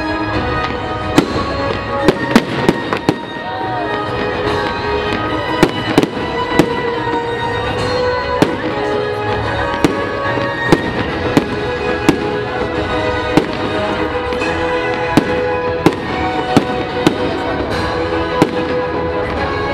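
Aerial fireworks shells bursting with sharp bangs at irregular intervals, about one or two a second, over music playing throughout.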